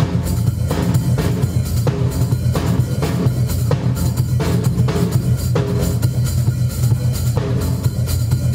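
Drum kit played in a solo: dense, fast strokes on the drums with bass drum and cymbals, no let-up.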